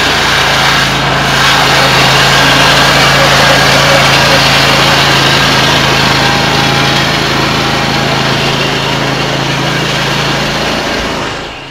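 Toro GrandStand stand-on mower's engine running at a steady speed with a constant low hum as the mower is driven across the yard, fading near the end as it moves away.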